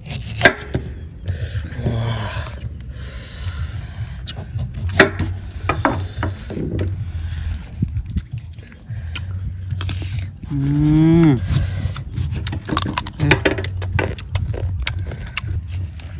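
Irregular sharp knocks and scrapes on wood, over a steady low rumble, with one short vocal sound rising then falling about ten and a half seconds in.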